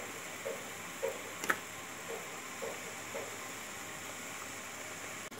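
Pot of oil-and-vinegar marinade at the boil: a steady hiss with soft bubbling pops about twice a second that fade out after a few seconds. A single sharp click about one and a half seconds in.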